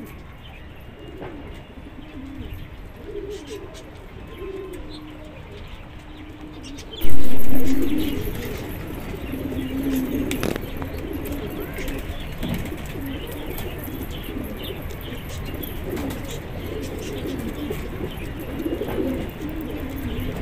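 Pigeons cooing, low soft coos repeating on and off. About seven seconds in there is a sudden loud rush of noise that fades over about a second, and the background stays noisier afterwards.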